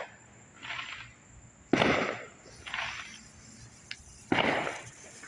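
Consumer fireworks going off: a sharp loud bang about two seconds in and another just after four seconds, with softer bursts between.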